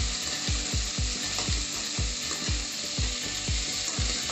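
Chopped onions sizzling as they sauté in hot oil in a frying pan and are stirred with a spatula, a steady frying hiss. A low steady beat of background music runs underneath.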